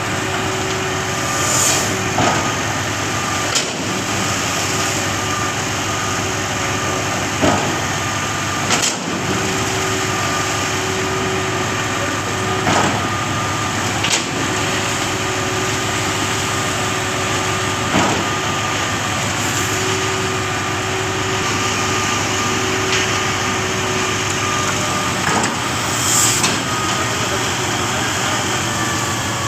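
Concrete pump running steadily, with a sharp knock every few seconds, the knocks often coming in pairs about a second and a half apart.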